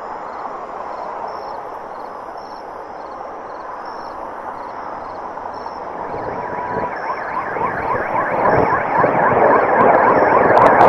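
Eerie horror sound-design noise: a steady hiss with faint high beeps pulsing about twice a second. About six seconds in, a rapid run of chirping, siren-like strokes, several a second, joins and swells steadily louder toward a loud rush at the end.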